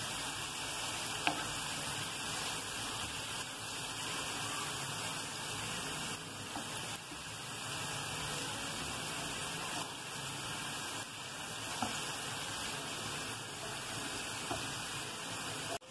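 Grated onions sizzling steadily in hot oil in a frying pan, stirred with a wooden spatula, with a few faint taps of the spatula.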